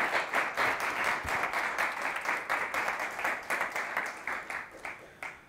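Audience applauding, a dense patter of many hands clapping that thins and dies away over the last couple of seconds.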